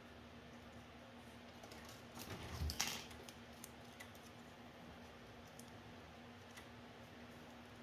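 Folded origami paper being handled and rustling, with soft scattered clicks and a louder crackle of paper about two to three seconds in.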